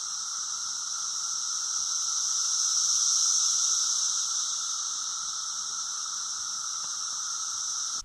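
Chorus of Brood IX periodical cicadas: a steady droning whine with a lower and a higher pitch together, swelling a little about three seconds in.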